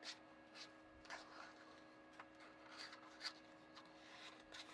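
Small plastic spoon scraping chocolate cookie dough out of a thin plastic mixing tray: faint, irregular scratchy strokes.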